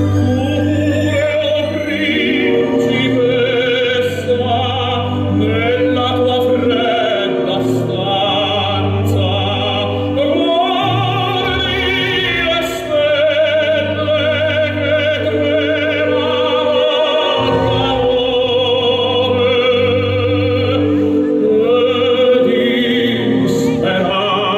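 Opera aria: a solo singer with wide vibrato over orchestral accompaniment, the soundtrack of a pyromusical fireworks show.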